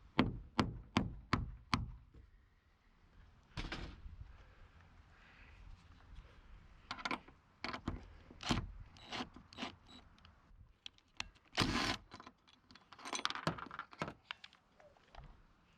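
A hammer, the 'persuader', strikes five quick blows in the first two seconds, then the work goes on with scattered knocks, clanks and scrapes of metal parts being handled.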